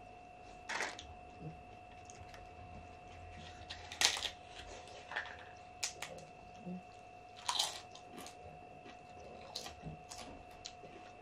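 Crisp papad being broken and crunched, in about seven short, sharp crackles spread over the seconds, the loudest about four seconds in. A faint steady hum runs underneath.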